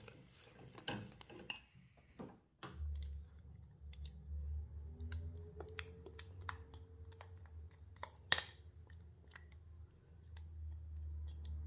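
Wire whisk ticking rapidly against the side of a metal bowl as thick custard cream is beaten. After a break it gives way to a low steady hum with scattered light clicks as the cream is poured out, and one sharp knock a little past the middle.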